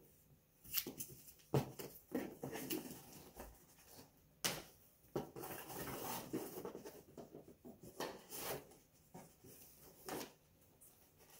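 Cardboard gift box and its ribbon being handled: irregular taps and knocks on the card, with rustling and scraping between them, busiest about midway.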